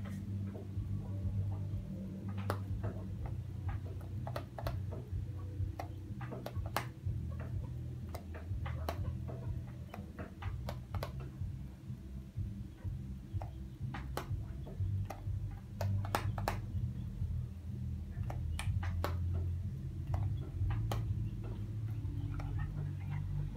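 A hair flat iron clicks and taps irregularly as its plates are clamped and drawn down sections of hair, with a comb knocking against it. A steady low hum runs underneath.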